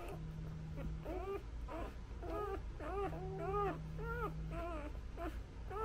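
Newborn Labrador puppies whimpering while nursing: a run of short squeaky cries, about two a second, each rising then falling in pitch.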